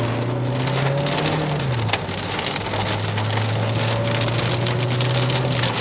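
Hail and heavy rain pelting a car's roof and windows, heard from inside the cabin as a dense, rapid patter of hits over a steady low drone. One sharper crack about two seconds in.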